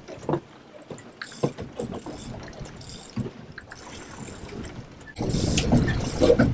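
Boat under way at trolling speed, with a low wash of water and scattered small knocks and clicks. About five seconds in, a sudden loud rumbling rush of handling noise starts as a shirt brushes against the camera.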